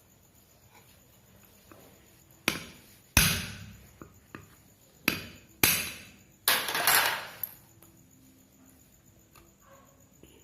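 Hammer blows on a ceiling fan's metal parts: about half a dozen sharp knocks a couple of seconds apart or closer, each ringing briefly, the loudest about three seconds in and several close together near the end.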